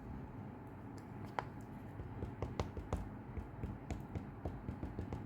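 Light tapping and clicking of a rubber stamp being dabbed onto an ink pad: one click, then from about two seconds in a quick, uneven run of taps, three or four a second.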